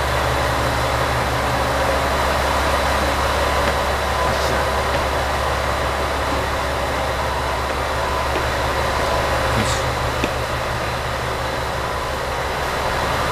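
Steady mechanical drone with a strong low hum and a few faint steady whines above it, with a few faint ticks about four and ten seconds in.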